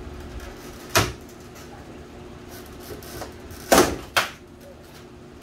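Plastic retaining clips of a Toyota Sequoia's stock grille snapping loose as the grille is pulled off by hand. Three sharp snaps: one about a second in, then two close together about three seconds later, the first of the pair the loudest.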